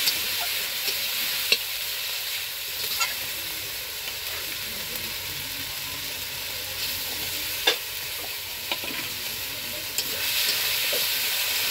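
Onions with garlic and ginger paste sizzling in hot oil in a metal karahi, stirred with a long metal spatula that scrapes and knocks against the pan now and then; the sharpest knock comes a little past halfway, and the sizzle grows louder near the end.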